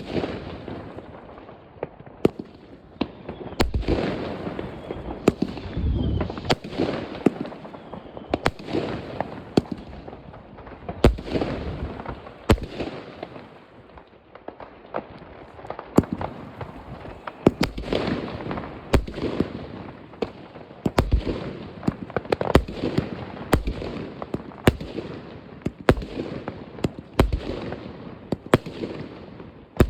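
Fireworks going off all around: a dense, irregular string of sharp bangs and firecracker reports over a constant rumble of more distant explosions.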